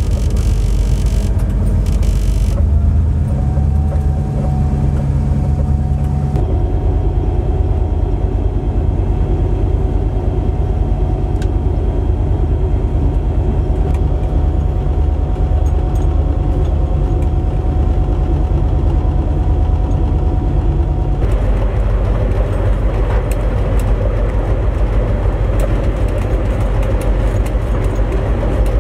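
Diesel locomotive cab ride: a Di 4's EMD 16-645E3B prime mover running under load, mixed with steady wheel and rail rumble. A rushing hiss comes in the first couple of seconds as a container freight train passes alongside. A steady whine runs through most of the first two-thirds, and the sound shifts abruptly about six seconds in and again about two-thirds through.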